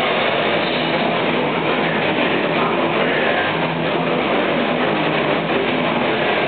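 Heavy metal band playing live, with distorted electric guitars and drums blurring into one steady, dense wall of sound.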